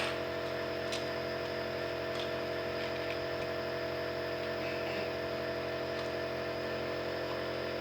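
Steady mechanical hum with a constant pitch and a few faint ticks.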